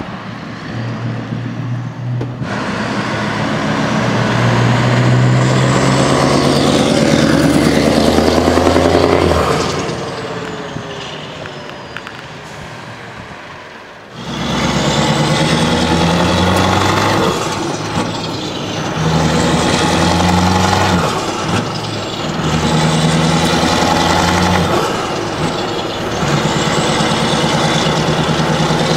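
Scania R500 V8 truck engine with an open exhaust pipe, loud and rising in pitch as the truck pulls away, then fading. After an abrupt cut, the same V8 is heard from the cab accelerating, its pitch climbing in stretches and dropping three times at gear changes.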